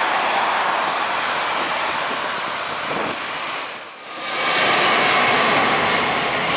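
Airbus A320 jet engines running at take-off power, a steady roar. It dips briefly about four seconds in, then returns louder and hissier as the airliner rotates and lifts off.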